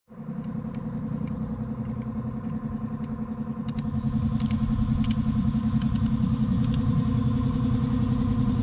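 An engine running steadily at a low, even pitch with a slight regular pulse, and a few faint metallic clicks over it.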